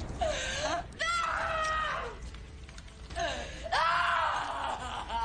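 A woman screaming in anguish: two long, high screams close together, then a longer one starting about three seconds in.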